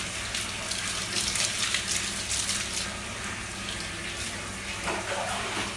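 Water running and splashing on a tiled floor, with the wet rubbing of hands scrubbing a dog's soapy, lathered coat during its bath.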